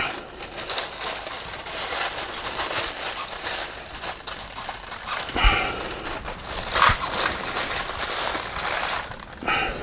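Packaging being handled during an unboxing: steady crinkling and rustling of wrapping as parts are dug out of a box, with a couple of knocks about five and a half and seven seconds in.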